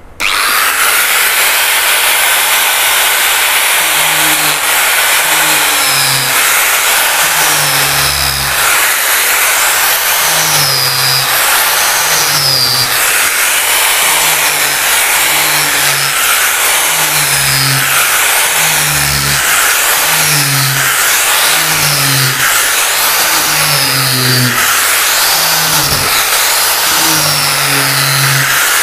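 Ingco AG710382 angle grinder with a 4-inch velcro sanding pad switching on suddenly and running loud and steady at full speed, its sandpaper sanding down a wooden board patched with wood filler.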